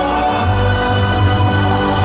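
Music with long held notes; a deep bass comes in about half a second in.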